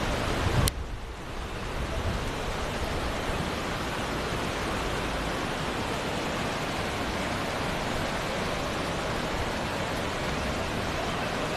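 A steady rush of water from heavy rain and flowing floodwater. A sharp click comes just under a second in; the sound dips briefly, then settles back to an even rush.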